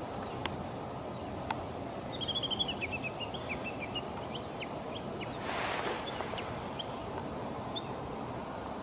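Eastern marsh harrier calling: a quick run of about a dozen faint, high, chirping notes, dropping a little in pitch, followed by a few scattered single notes. Steady outdoor background noise throughout, with a brief rush of noise, like a gust, a little past halfway.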